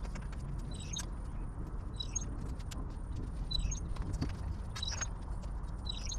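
Light clinking and rattling of the carport's painted metal pole ribs as they are lifted and swung into place, over a steady outdoor rumble. A short high chirp recurs about every second and a half.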